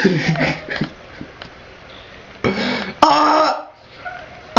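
A man's loud, throaty grunts ("augh!"): a few short grunts at the start, then one long loud grunt about two and a half seconds in.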